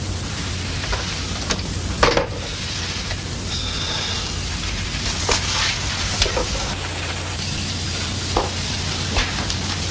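Steady hiss with a low hum underneath and a few scattered clicks and crackles.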